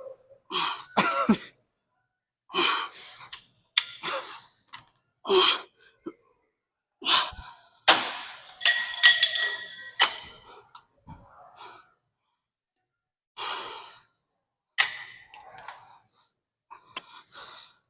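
Short, breathy exhalations and sighs of effort from a person lifting weights, with a few sharp knocks in between, the loudest about eight seconds in.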